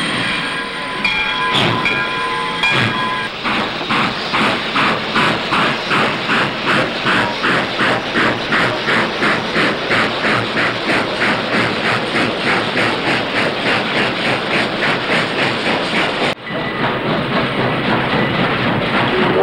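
Steam locomotive and freight train running: a few short tones near the start, then an even rhythmic beat of about three a second. About three-quarters of the way through it cuts to a steadier hiss.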